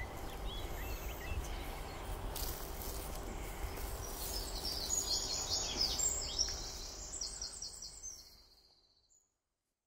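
Outdoor ambience with small birds singing, repeated high chirps and trills, over a steady low rumble. It fades out about eight to nine seconds in.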